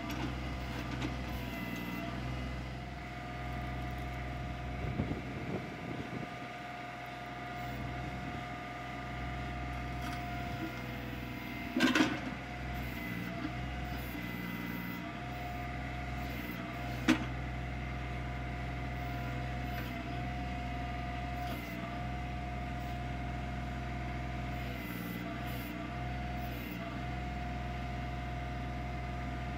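Kioti CK25 tractor's three-cylinder diesel engine running steadily while the backhoe is worked, with a steady whine that dips briefly in pitch several times. A few clunks stand out: a small cluster about 5 seconds in, the loudest about 12 seconds in, and a sharp knock about 17 seconds in.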